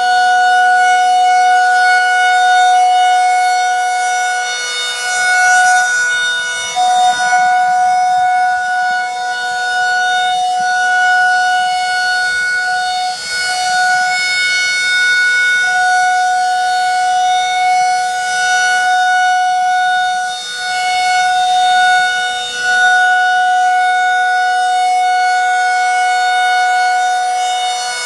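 Federal Signal 2001-SRN rotating outdoor warning siren sounding its Full Alert steady tone: a loud, unbroken dual-tone chord held at one pitch. It swells and fades as the head rotates, and the head wobbles badly on its mount.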